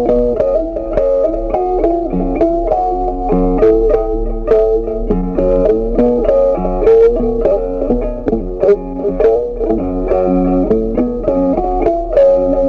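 Instrumental background music: a guitar playing a quick run of plucked notes over a bass line.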